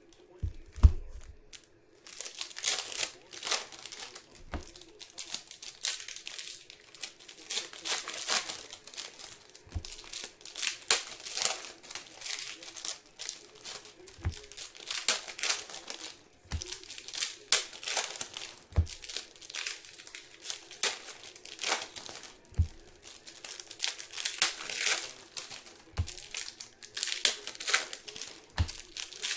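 Plastic-foil trading card pack wrappers being torn open and crinkled, over and over in short bursts, with a soft low thump every few seconds.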